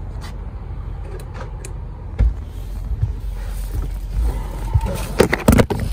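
Getting into a car's driver's seat: a steady low rumble with a few light clicks, then a cluster of louder knocks and bumps near the end.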